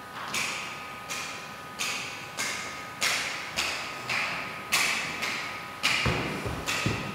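Sharp hand claps in a steady rhythm of about three every two seconds, each ringing out in a big reverberant hall and growing slightly louder. Dull low thuds join in near the end, under a faint steady hum.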